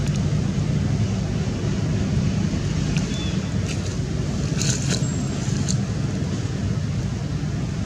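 Steady low rumble of outdoor background noise, with a few brief high chirps and clicks about halfway through.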